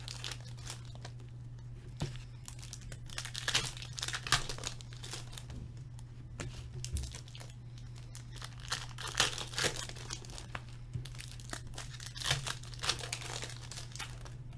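Foil trading-card pack wrappers crinkling and tearing as hockey card packs are ripped open by hand, in irregular rustles, over a steady low hum.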